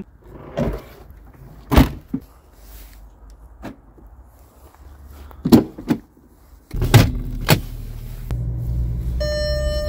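VW Touareg door and tailgate noises: several hard thuds and clunks, the loudest about two seconds in and again near the middle. From about seven seconds a steady low hum inside the cabin follows, with two sharp clicks, and near the end a steady warning beep starts. On this Touareg that beep is the parking-brake warning that keeps sounding after the brake is released.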